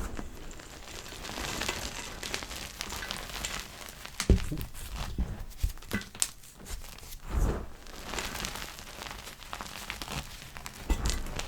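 Block of gym chalk being crushed: soft crackling and crunching, with a few duller thumps about four seconds in, about seven and a half seconds in, and near the end.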